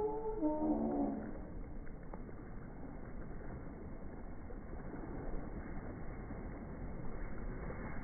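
Slowed-down outdoor ambience from slow-motion playback: a deep, even rumbling noise of wind and lake shore, with nothing high-pitched in it. A long, low, wavering tone fades out about a second in.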